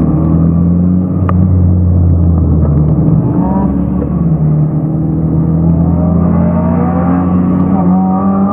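Mitsubishi Lancer Evolution's turbocharged four-cylinder engine heard from inside the cabin under hard driving, held in second gear: the revs drop about three seconds in, then climb steadily again as it accelerates. A single short click about a second in.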